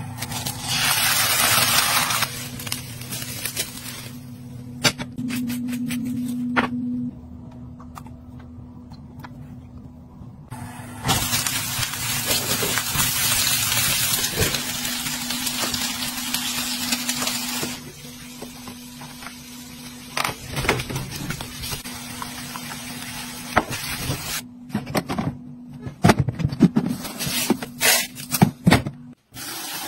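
A string of short kitchen sounds: a hiss of sizzling in a nonstick pan at the start and again for several seconds midway while food cooks under a glass lid, then a run of sharp plastic clicks and taps near the end.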